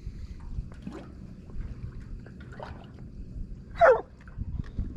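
Young hound dog giving one short, loud yelp that falls in pitch, just under four seconds in, with a fainter, similar cry about a second before it. Low water and wind noise runs beneath.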